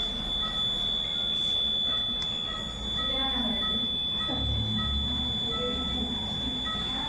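Neonatal unit equipment: a continuous high-pitched electronic tone with short, repeated beeps at two pitches, over muffled voices in the ward.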